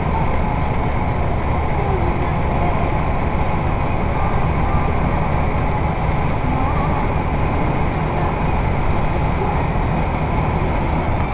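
Steady drone of an 18-wheeler's diesel engine with road noise, heard inside the cab while cruising at highway speed.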